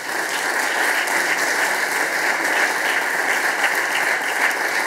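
Audience applauding, a steady stretch of clapping.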